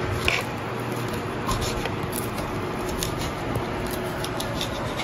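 Kitchen knife cutting roasted pork on a wooden cutting board: scattered light taps and cuts of the blade against the board, over a steady background hiss.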